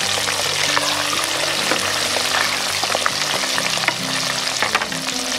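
Frozen crinkle-cut chips frying in the hot oil of a deep fryer: a loud, steady sizzle with scattered pops, the chips being stirred with a slotted spoon.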